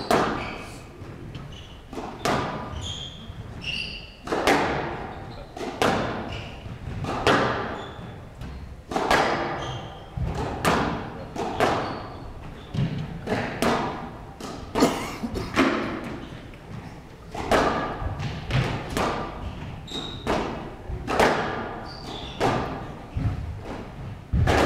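Squash rally: the ball struck by rackets and smacking off the court walls, roughly one sharp impact every second, each echoing in the large hall, with short high squeaks between shots.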